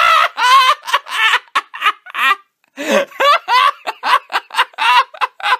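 Uncontrollable high-pitched laughter in rapid bursts, about three or four a second, with a brief catch of breath about two and a half seconds in.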